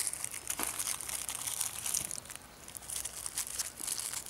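Wrapper of a pack of Tigre E-4 firecrackers being crinkled and torn open by hand, a steady run of small papery crackles.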